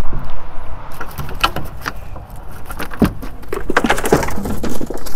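Cast net full of fish being hauled up over the side of a boat: water splattering off the mesh, with a quick irregular run of slaps and clatters on the deck from about a second in.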